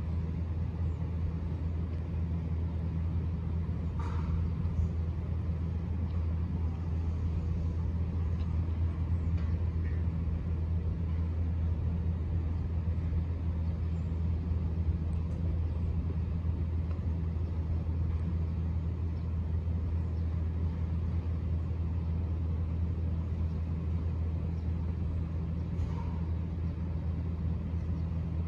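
Steady low mechanical hum that holds unchanged throughout. A faint short chirp or click comes about four seconds in and again near the end.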